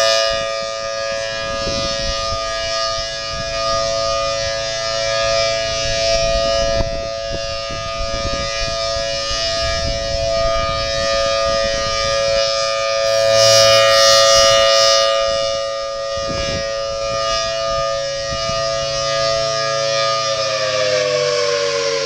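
Federal Signal Thunderbolt 1000T rotating siren sounding its steady alert, a two-tone chord that swells louder around halfway as the turning horn sweeps toward the listener. Near the end the pitch starts to fall as the siren winds down.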